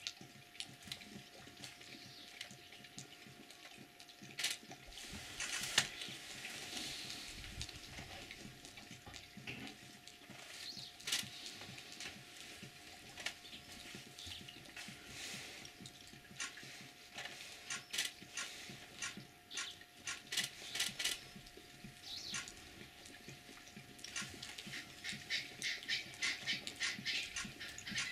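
Pride of lions lapping water: a scattered run of small wet clicks from many tongues, thickening near the end into fast, steady lapping.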